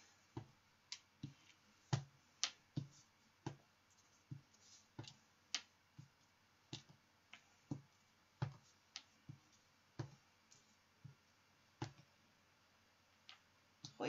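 Clear acrylic stamp block being inked on an ink pad and pressed again and again onto cardstock, giving short, sharp clicks and knocks at an uneven pace of about one to two a second.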